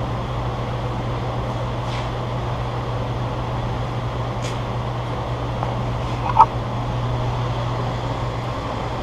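Steady low machinery hum with an even hiss. A short squeak comes about six and a half seconds in.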